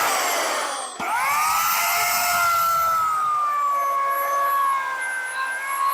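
Oregon CS1500 15-amp corded electric chainsaw revving up with a rising whine, dropping off and revving up again about a second in, then running at a high, slightly wavering pitch that sags a little as it cuts the felling notch into the trunk.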